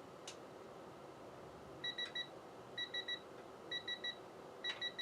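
Electronic beeping in quick groups of three, about one group a second from about two seconds in, with a couple of sharp clicks: typical of a digital torque wrench warning that the nut being tightened is nearing its set torque.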